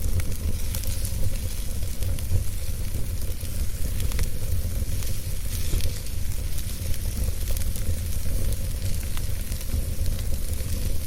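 Wood fire crackling in a fireplace, with scattered small pops and clicks over a steady low rumble.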